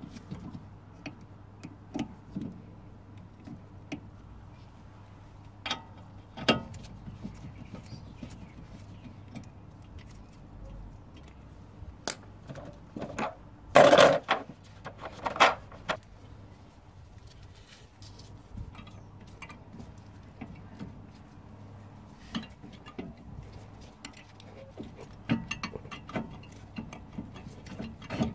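Scattered metallic clicks, knocks and clinks of hand work on a car's front brake caliper and brake hose, with a louder rattling clatter about halfway through, over a faint steady hum.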